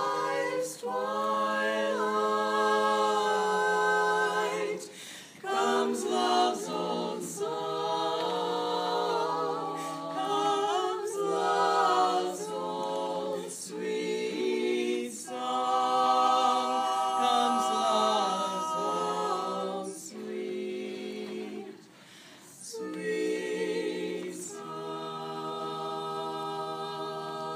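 Four women singing together a cappella, in long held notes with short breaks between phrases.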